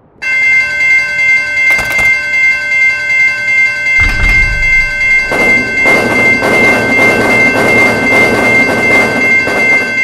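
Railroad crossing electronic warning bells ringing together in a steady, pulsing two-tone ring. About four seconds in, a train rumbles up and its wheels clatter past over the rails beneath the bells.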